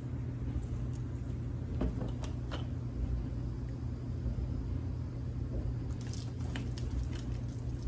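A soapy, dripping wet sponge squishing and wiping on a truck's front end, with a few soft clicks and wet crackles, over a steady low hum.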